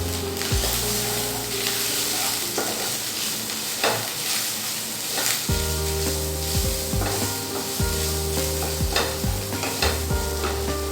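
Chopped onion with ginger-garlic paste and turmeric sizzling in hot oil in a kadai, stirred with a spatula that scrapes the pan in repeated short strokes.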